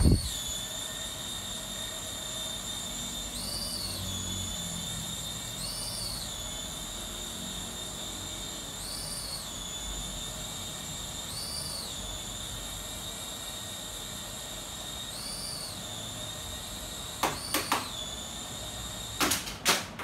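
Small electric motor and plastic propellers of an Elsa flying fairy doll toy whining steadily as it hovers. The whine briefly rises in pitch five times. A few sharp knocks come near the end.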